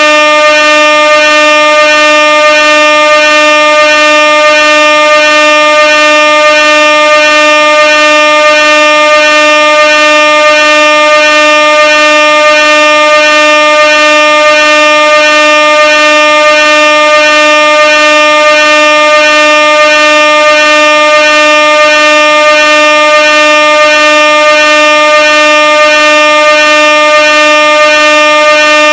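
Air horn blaring in one long, unbroken, very loud blast at a single steady pitch, rich in overtones.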